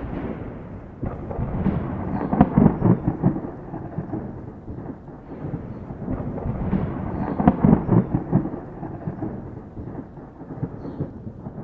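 Thunderstorm: steady rain with two long rolls of thunder, one swelling about two seconds in and the other about seven seconds in.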